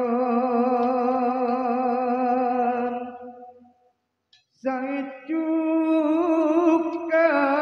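A man singing solo, unaccompanied, in a traditional Madurese style: one long held note with a wavering vibrato that fades out about three seconds in. After a short silence he starts a new held phrase that steps up in pitch twice.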